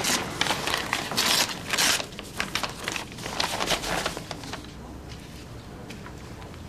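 A paper envelope being torn open and its paper rustled: a quick run of tearing and rustling sounds that stops about four and a half seconds in.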